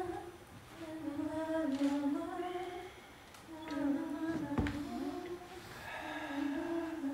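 A voice humming a slow, wordless melody in drawn-out phrases with short pauses between them. A single sharp knock sounds about four and a half seconds in.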